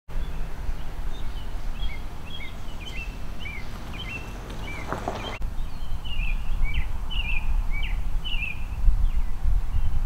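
Rural outdoor ambience: small birds chirping in many short, quick calls over a steady low rumble. The sound breaks off for an instant about five seconds in, then carries on.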